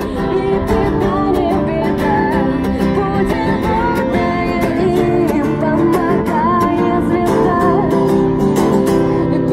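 Acoustic guitar strummed in a steady rhythm while a man sings a melody over it into a microphone, amplified through a small street amp.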